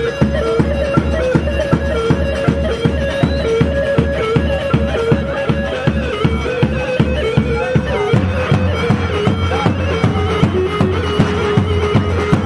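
Kurdish halay dance music: a davul drum beats steadily about four times a second under a melody played over a held drone note. The drone drops a little in pitch about eight seconds in.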